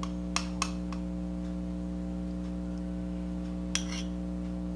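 Kitchen utensils knocking lightly against a bowl or pan as pancake batter is poured: two small clicks about half a second in and a brief clatter near the end, over a steady low electrical hum.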